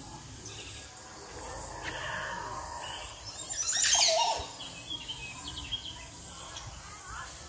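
Outdoor ambience of birds calling over a pulsing high buzz, with one louder, gliding call about four seconds in.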